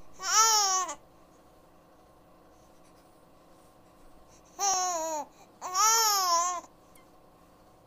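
A baby vocalizing: three drawn-out, high-pitched calls, each rising then falling in pitch. The first comes right at the start and the other two come close together about five and six seconds in.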